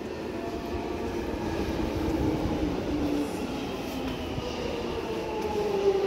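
London Underground train running, its electric traction motors whining over the wheel and tunnel rumble, the whine gliding in pitch and sliding downward, loudest near the end.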